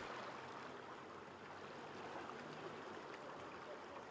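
Faint, steady rushing of water.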